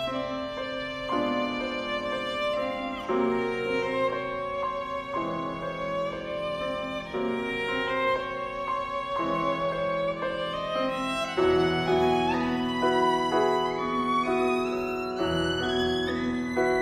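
Violin playing a slow, sustained melody with piano accompaniment, the piano chords changing about once a second and the bass growing fuller about two-thirds of the way through.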